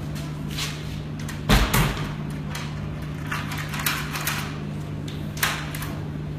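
Toilet cubicle doors being pushed and knocked: a loud bang about one and a half seconds in, then lighter knocks and latch clicks, over a steady low hum.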